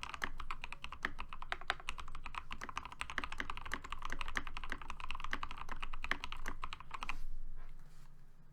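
Fast continuous typing on a Keychron K8 mechanical keyboard fitted with hand-lubed Momoka Frog switches and PBT doubleshot keycaps: a dense run of key clacks that stops about seven seconds in.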